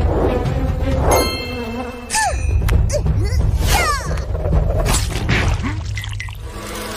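Animated chase-scene soundtrack: background music under a run of cartoon sound effects. There are sharp knocks and thuds, a ringing clang about a second in, and quick swooping glides near the middle.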